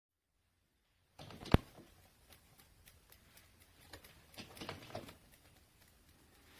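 A few light clicks and knocks: a short cluster with one sharp click about a second and a half in, then a single tick and a few more knocks near the end.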